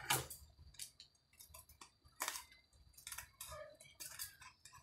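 Scissors cutting fabric backed with clear contact paper: a string of short, irregular snips and clicks.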